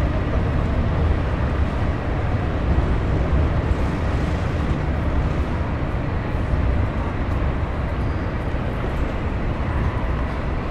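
Train station platform ambience, dominated by a steady low rumble with an even wash of background noise above it.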